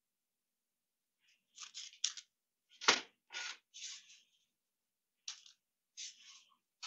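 Short scrapes and clicks of pottery tools being handled and set down on the wheel head, with one sharper knock about three seconds in.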